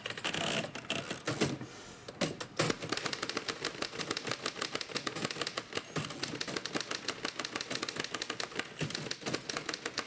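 Two manual typewriters being typed on at once: a fast, continuous clatter of key strikes.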